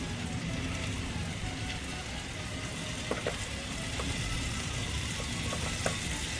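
Spiced butter sauce sizzling and bubbling steadily in a frying pan, with a few sharp pops about three seconds in and again near the end.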